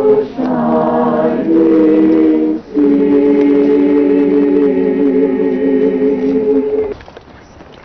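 Choir singing slow, sustained chords, with two brief breaks between phrases; the final chord is released about seven seconds in, leaving only faint background noise.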